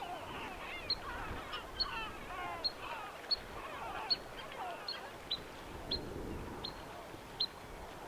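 Birds calling and chirping, with a short high note repeated about every three-quarters of a second over a chatter of wavering calls.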